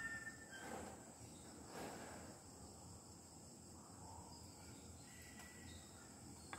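Near silence: faint room tone with a steady high-pitched whine throughout and a couple of soft rustles in the first two seconds.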